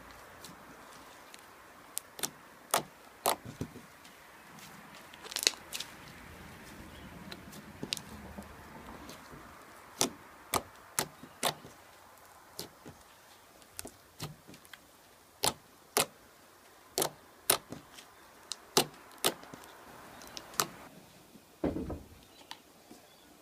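Slime being squished and stretched, giving irregular sharp pops and clicks, with a low thump near the end.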